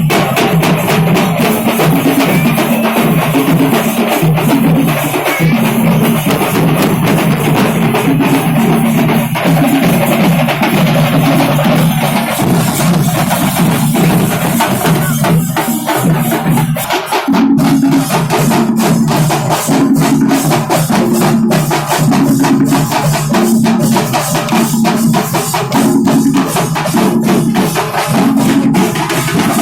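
Loud kuthu-style festival drum music: fast, dense drumming over a repeating low melody line. After a short break about 17 seconds in, the drumming comes back denser.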